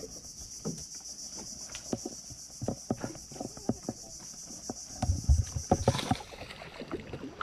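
Steady high-pitched insect drone, which stops about six seconds in, with scattered light clicks and knocks throughout and a few dull low thumps about five seconds in.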